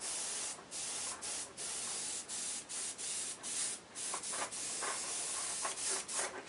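Airbrush spraying transparent black shading paint, a hiss that stops and starts in short bursts, many times.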